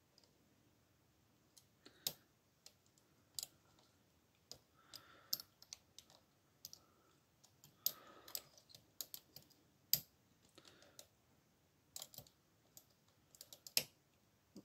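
Faint, irregular metallic clicks and ticks of a hook pick and tension tool working the pins and sliders inside a Yale TS007 euro cylinder lock.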